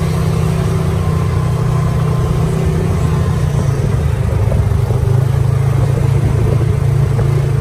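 Polaris RZR side-by-side's engine running steadily as it cruises, heard from on board.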